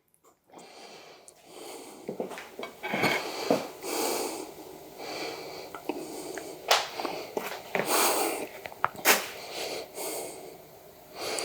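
Kitchen knife scraping and cutting through a seared chicken breast, with irregular scrapes and several sharp knocks of the blade or utensils on a board or plate.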